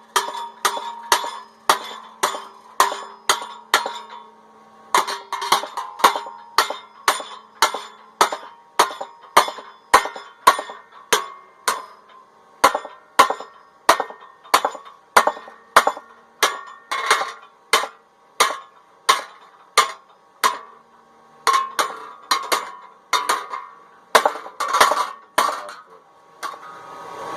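Hammer striking hot 16-gauge sheet steel clamped between angle iron in a vise, bending it over. Steady blows about two a second, each with a metallic ring, with short breaks about four seconds in and about twenty seconds in.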